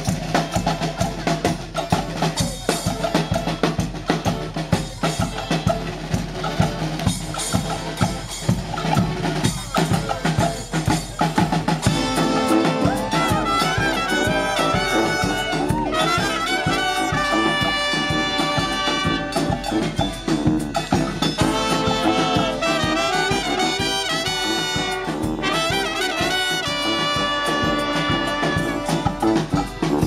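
Live street brass band playing: drums and percussion carry a rhythm alone for about the first twelve seconds, then the horns come in with the melody over the drumming.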